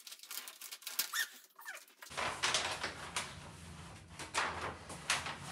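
Sheet of plastic adhesive contact paper rustling and crackling as it is handled, smoothed and folded over a countertop edge. There are two short falling whines about a second in, and the crackling grows dense from about two seconds.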